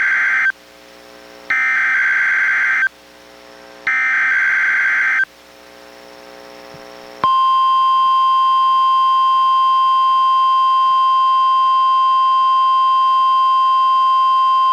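NOAA Weather Radio alert signals received on a Reecom R-1630 weather radio. First come the end of one and then two more buzzy SAME digital header bursts, each about a second and a half long with short pauses between. About seven seconds in, the steady 1050 Hz Warning Alarm Tone starts and holds without a break.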